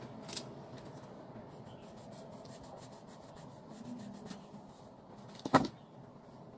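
Soft rubbing and scraping as a kitchen knife cuts through a rolled log of cinnamon-bread dough and hands handle the slice. Near the end comes a sharp double clack of the knife against the tabletop.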